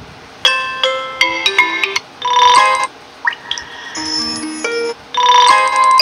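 Vivo phone's built-in incoming-call ringtones previewed one after another: short bell-like chiming melodies, each a different tune, with a new one starting four times, after brief gaps of about a quarter second.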